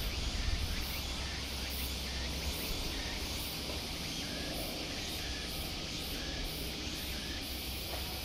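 Outdoor background noise: a steady low rumble under a broad hiss, with a faint high pulsing about twice a second, like insects, and a few faint short chirps.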